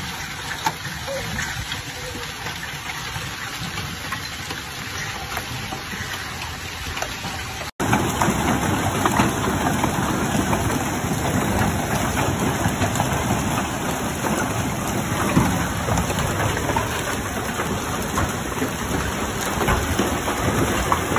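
Heavy hail and rain pelting down: a dense, steady hiss made of many small impacts. It gets louder about eight seconds in.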